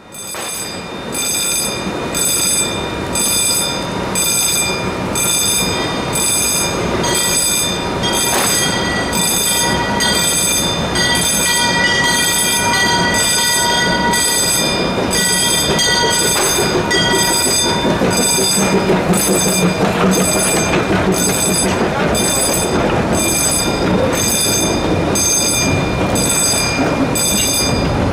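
A railroad crossing bell rings steadily, about one and a half strikes a second, as a narrow-gauge steam train comes through the crossing. A held high tone sounds through the middle stretch, and in the second half the rumble and clatter of the open passenger cars rolling past grows louder.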